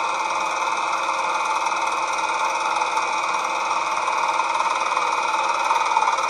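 Brother GS 2700 electric sewing machine running at a steady speed, stitching a straight seam through cotton fabric: an even hum with a high whine over it.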